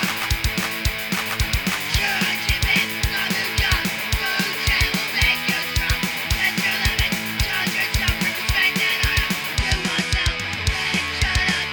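Rock band playing: electric guitar over a steady kick-drum beat of about three strokes a second.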